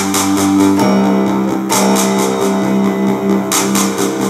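Korg Kross synthesizer keyboard being played: sustained chords that change every second or so, over a steady, even ticking rhythm.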